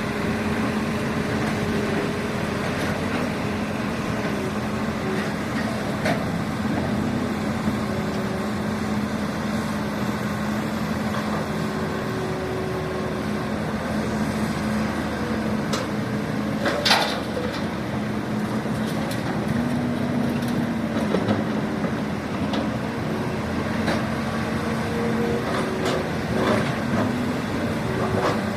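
Radio-controlled model construction machinery running: a steady electric-motor and hydraulic-pump whine whose pitch shifts now and then as the controls are worked. A sharp click comes about 17 seconds in.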